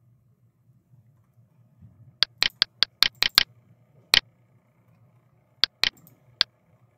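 Computer mouse clicking: about ten sharp clicks starting about two seconds in, several in quick pairs and runs like double-clicks, over a faint low hum.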